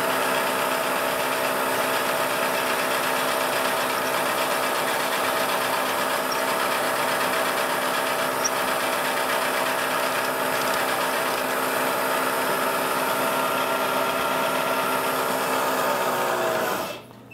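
Vertical milling machine spindle driving a twist drill through a metal index plate: a steady machine hum with cutting noise that runs evenly, then drops away suddenly near the end.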